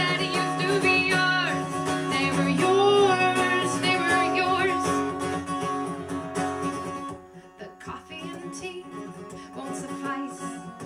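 Live acoustic song: acoustic guitar playing with a woman singing. The music drops quieter about seven seconds in, then builds again.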